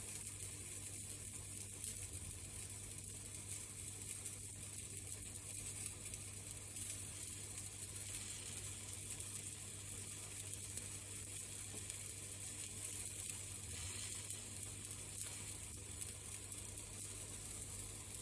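Food frying in a pan: a steady sizzle with small scattered crackles.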